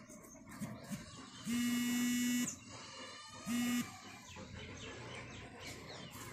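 Two loud honk-like tones held at one steady pitch, the first about a second long, the second a short blip about a second later.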